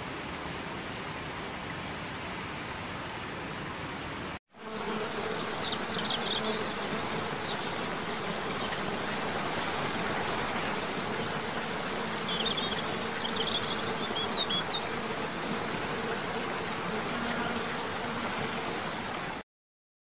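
Steady rush of a river running over rocks. After a brief cut about four seconds in, a waterfall's steady rush with a low insect buzz and a few short high chirps. It cuts off abruptly just before the end.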